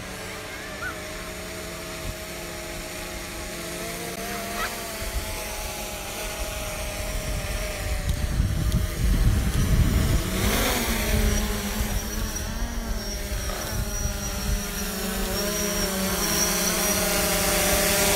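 Quadcopter drone's propellers humming steadily and growing louder as it flies closer. The pitch wavers near the end as the drone manoeuvres, and there is a spell of low rumble about halfway through.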